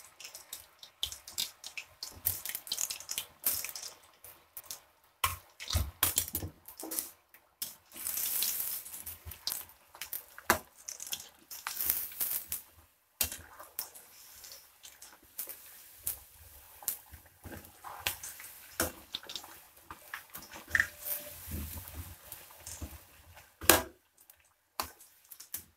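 Boiled garadu (yam) chunks deep-frying in a kadai of hot oil, sizzling and crackling in spurts as the moist pieces hit the oil, with sharp clicks of a slotted metal spoon against the pan, the loudest near the end.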